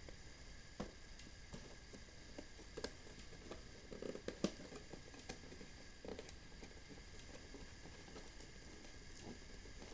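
Faint, scattered taps and rustles of a cardboard action-figure box being handled as its flap is worked open, the sharpest tap about four and a half seconds in.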